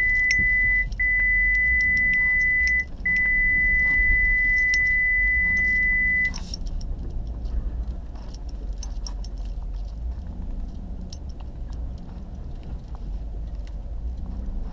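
A loud, steady, high-pitched electronic warning tone sounds inside a truck's cab, broken twice briefly, and cuts off about six seconds in. Underneath, the truck runs with a low rumble as it drives through tall brush, with light clicking and rattling throughout.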